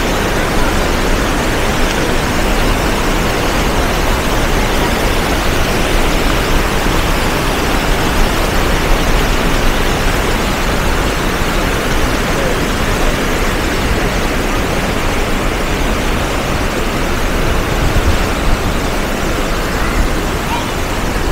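River water rushing over a small weir and through rapids: a loud, steady rush with no letup.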